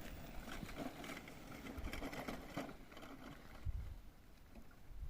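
Electric scooter being ridden, rattling and clicking as it rolls. Low gusts of wind buffet the microphone about two-thirds of the way in.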